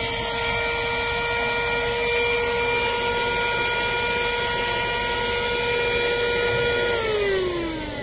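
Voroly 12 V handheld car vacuum cleaner running with a steady high motor whine, its nozzle sealed against a smartphone and holding it up by suction. About seven seconds in, the whine drops in pitch and fades as the motor winds down.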